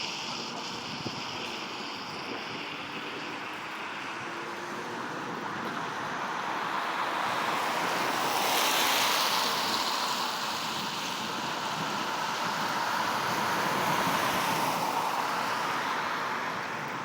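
Heavy thunderstorm rain pouring down in a steady hiss, swelling louder twice as gusts drive it harder.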